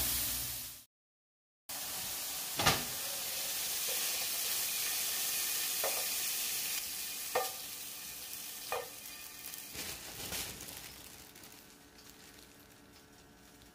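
Chicken pieces sizzling in a frying pan. The sound cuts out briefly about a second in, then the steady sizzle returns with a few light knocks and fades down near the end.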